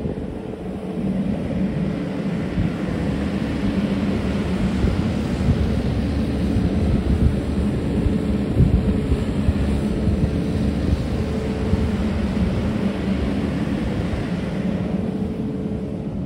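Kubota KX080-3S excavator's diesel engine running steadily under hydraulic load while the upper house slews round on its tracks. A steady engine drone, with a louder rushing layer that builds a few seconds in and fades near the end.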